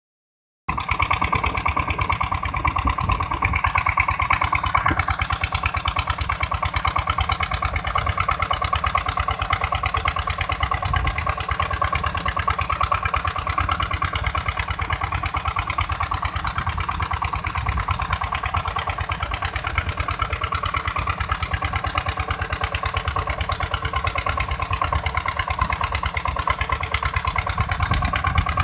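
An engine running steadily with a fast, even pulse and no change in speed.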